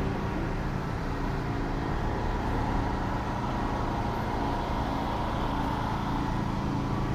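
Strong wind rumbling on the microphone over a steady outdoor hum, with no distinct events.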